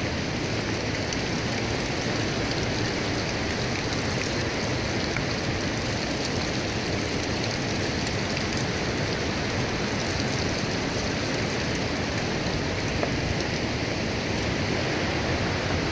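Steady rush of fast-flowing mountain water, an even, unbroken roar.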